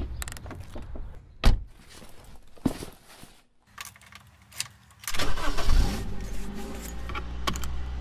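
Car door shut with a single heavy knock, then small key clicks at the ignition. About five seconds in, the car engine cranks and starts with a loud burst and settles into a steady low idle.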